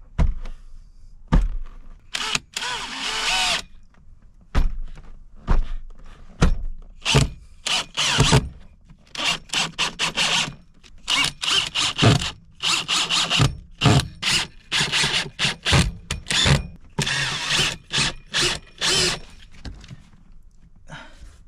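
Power drill driving screws into a piece of wood. The motor runs for over a second about two seconds in, followed by many short bursts of the trigger and a few knocks between them.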